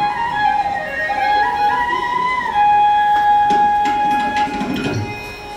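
Indian classical music on a flute: a melody gliding between notes, then one long held note in the middle, with a few percussive strokes near the end.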